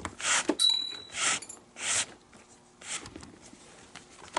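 Leather lace being pulled through the lacing holes of a baseball glove's palm: a series of quick swishing pulls about half a second to a second apart, with a brief high ringing tone about half a second in.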